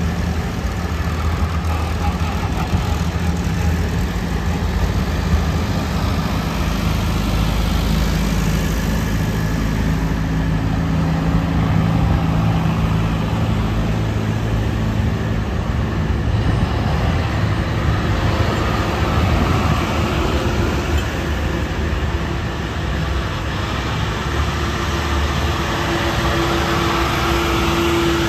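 Farm tractors driving past one after another, a small old Farmall B and big modern tractors, engines running with a steady drone whose pitch shifts as each one goes by. A clearer, higher engine tone comes in near the end as a large tractor passes close.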